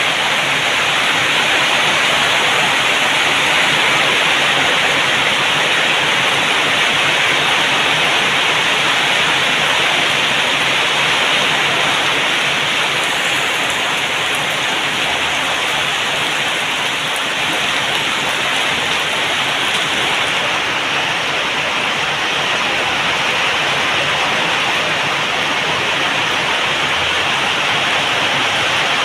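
Rain falling steadily in a heavy downpour: an even, unbroken hiss.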